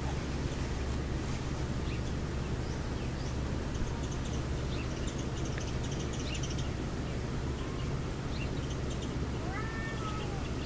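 Munchkin kitten giving one short, arching meow near the end, over a steady low hum with small birds chirping in the background.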